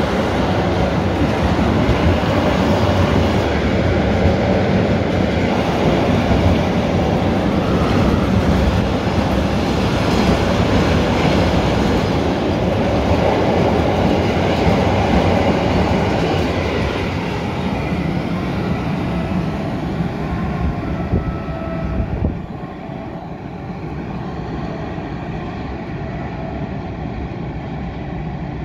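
Freight train of enclosed double-deck car-carrier wagons running past close by, its wheels rolling over the rails. The sound eases off about two-thirds of the way through and drops suddenly soon after as the train draws away.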